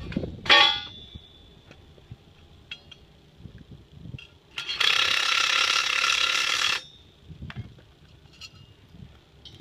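Metal trench drain grate hardware: a sharp clank with a short ring about half a second in, light knocks, then a loud mechanical buzz lasting about two seconds near the middle.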